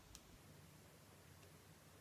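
Near silence: room tone, with one faint click shortly after the start.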